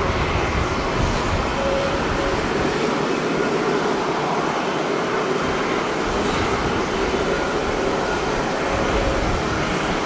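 Rolls-Royce Trent 1000 turbofans of a Boeing 787-8 Dreamliner on its landing rollout, spoilers up: a steady jet roar. Wind rumbles on the microphone at the start and again near the end.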